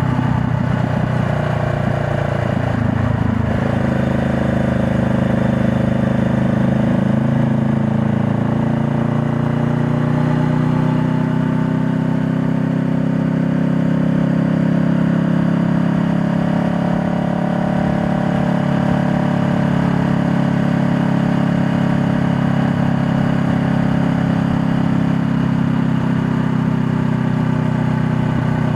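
2020 Honda Rebel 500's parallel-twin engine running under way. Its note changes pitch about three seconds in, then rises and falls slowly through the middle with the throttle.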